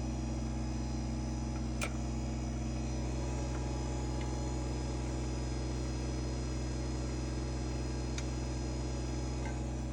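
Kubota BX24 compact tractor's three-cylinder diesel engine running steadily at idle, with one sharp click about two seconds in and a couple of faint ticks later.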